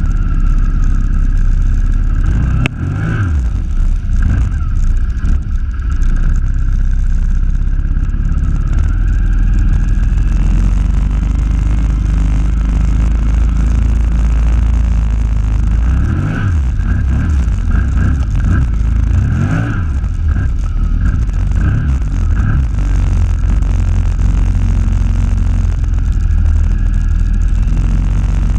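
ATV engine running as the quad ploughs through deep flood water, revving up and down briefly about three seconds in and several more times about halfway through, over the steady churning and splashing of the water.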